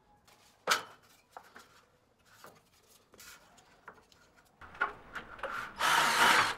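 Scattered light clicks, knocks and rubbing as metal framing profiles and cables are handled, with a sharper knock about a second in and a short harsh burst of noise near the end.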